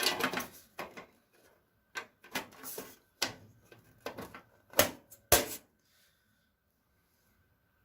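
Parts of a PC case being handled: a run of separate clicks and knocks over the first five seconds or so, then quiet.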